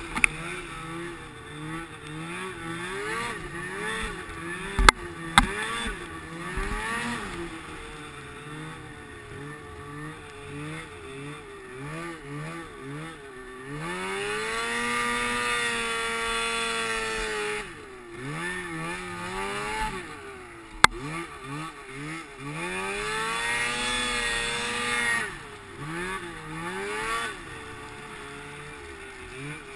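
Polaris IQ 600 snowmobile's two-stroke engine revving up and down over and over as the throttle is worked through deep powder, with two longer high-revving pulls around the middle and two-thirds of the way in. A few sharp knocks sound over the engine.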